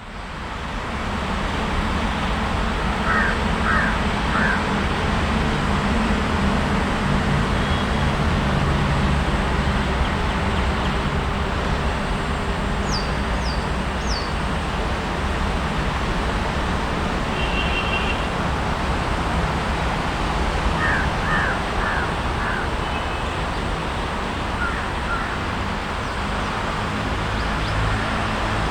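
Steady outdoor rumble of engines and traffic, with birds calling over it in short series of three or four calls, about three seconds in and again around twenty-one seconds, and a few high chirps near the middle. The sound fades in over the first second.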